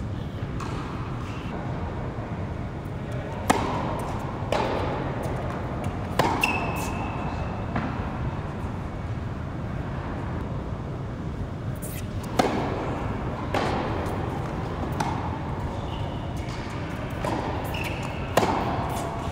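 Tennis ball struck by rackets and bouncing on an indoor hard court, the sharp pops echoing in a large hall, in two short rallies: a few hits a few seconds in, then another run of hits in the second half. A few short squeaks follow some of the hits, over a steady low rumble.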